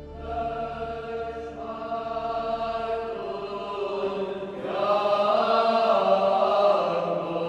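Choral chanting: several voices holding long notes that move to new pitches every second or so, swelling louder about halfway through.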